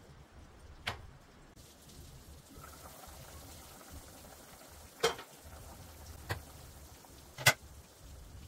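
A pot of pork stew simmering on a gas stove, a steady bubbling hiss that grows a little brighter once the lid is off, broken by four sharp clinks of cookware. The clinks come at about one, five, six and seven and a half seconds in, the ones at five and seven and a half seconds loudest.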